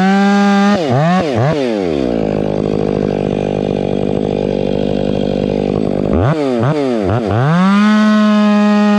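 Stihl 500i fuel-injected two-stroke chainsaw running at high revs with a few quick throttle blips. It drops to idle about two seconds in, then is blipped back up about six seconds in and held at high revs.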